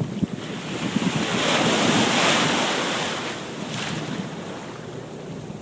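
Ocean surf: a wave breaking and washing in, swelling to its loudest about two seconds in and then fading, with wind buffeting the microphone.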